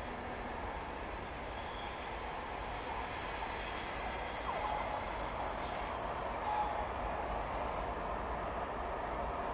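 Distant TEP70BS diesel passenger locomotive and its train approaching: a steady low rumble from its V16 diesel engine and the wheels, slowly growing louder.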